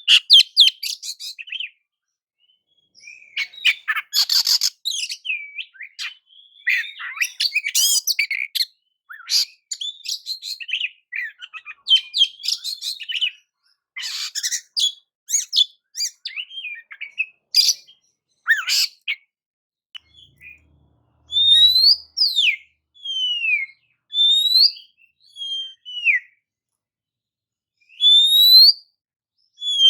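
Oriental magpie-robin (kacer) singing: a rapid, varied run of chattering and whistled phrases, then, about two-thirds of the way in, slower single clear whistles that slide up or down with short pauses between them.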